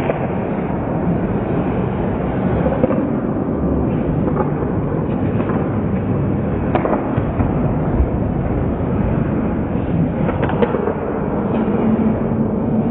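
Ice hockey play in a rink: a steady noisy arena ambience with scattered sharp clacks of sticks on the puck and ice, a few seconds apart. A low steady hum comes in near the end.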